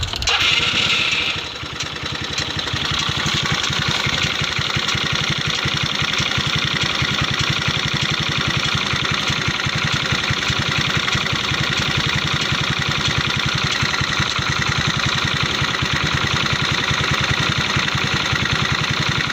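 Kymco Like 125 scooter's single-cylinder four-stroke engine running louder for about the first second and a half, then settling to a steady idle with a quick, even pulsing beat.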